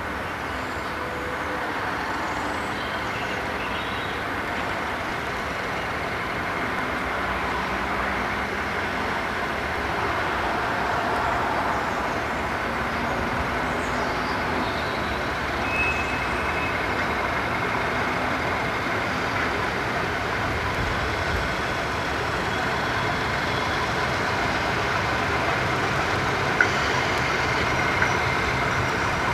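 Diesel locomotive engine running steadily as it hauls a slow engineering train, getting gradually louder as it comes closer. Two sharp knocks sound near the end.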